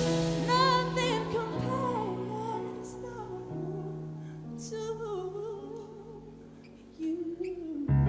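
Female solo vocal holding slow, wavering notes with vibrato over soft held accompaniment chords that change twice and fade steadily. Near the end she sings a last rising phrase, and the music swells loudly right at the close.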